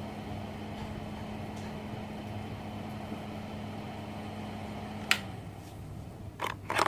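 Smarter TIG-180S DC inverter welding machine switched on, its cooling fan running with a steady electrical hum. A sharp click comes about five seconds in, the higher part of the hum fades after it, and a few knocks follow near the end.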